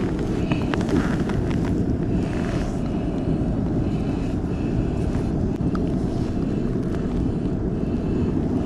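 A steady low rumble with light clicks and rustles from a speckled trout being held and unhooked, a soft-plastic lure worked out of its mouth.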